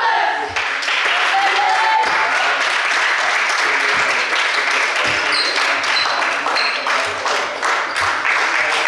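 Sustained applause, many hands clapping continuously, with voices mixed in, in a reverberant sports hall.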